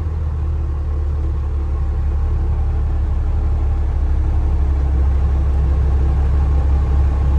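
Cummins diesel engine in a C30 truck running as the truck drives, a steady low drone that gets a little louder from about two seconds in.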